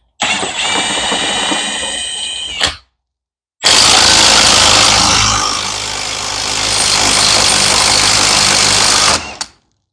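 A cordless impact tool driving the forcing screw of a bearing puller to draw a differential carrier bearing off a Getrag transaxle differential. It runs twice: first a whining run of about two and a half seconds, then, after a pause of about a second, a longer, louder and harsher run of about five and a half seconds.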